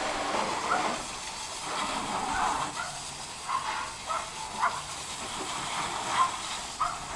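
Water hissing from a garden-hose spray nozzle at light pressure, spattering onto a mud-caked ATV's engine and frame. Short, sharp sounds recur every second or so over the spray.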